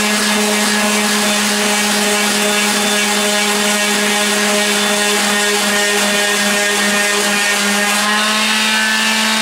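Electric palm sander running steadily with its pad on the edge of an oak bar top: a constant motor hum over the hiss of sandpaper on wood.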